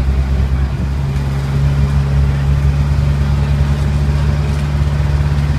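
Tourist tram's engine running steadily, heard from aboard as a low drone, its tone firming a little about a second and a half in.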